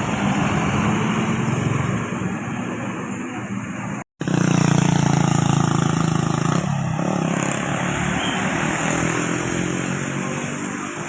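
Bus engine running close by as it passes on the road, with traffic and road noise. The sound cuts out briefly about four seconds in, then comes back louder.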